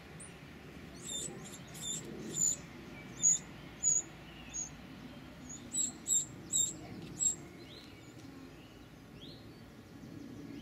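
Winter wrens at a nest box giving short, high-pitched chirps in two quick runs, one starting about a second in and another about six seconds in.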